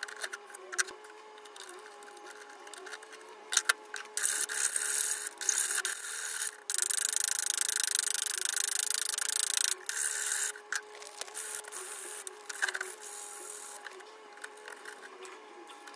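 A small wooden knob being hand-sanded or scraped with a thin strip: a dry rasping hiss of rubbing strokes. The strokes come in short bursts, then run continuously for a few seconds near the middle before dying away, with small clicks and taps of handling around them.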